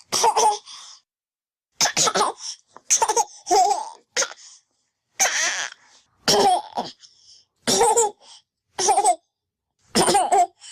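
A young child laughing and coughing in about nine short separate bursts, each cut off into silence.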